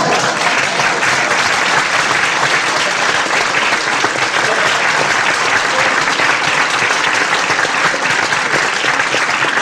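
An audience applauding steadily, recorded from within the crowd on a portable cassette recorder.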